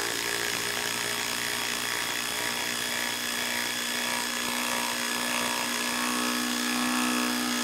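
DeWalt 3/8-inch cordless impact wrench hammering steadily at a constant rapid rate as it drives a half-inch lag bolt into wood.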